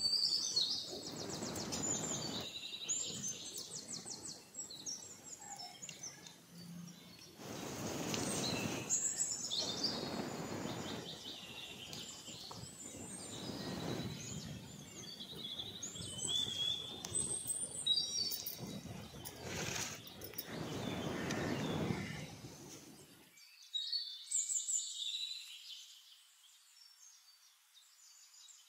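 Small birds chirping and calling on and off, over several spells of low rushing noise that stop abruptly about 23 seconds in.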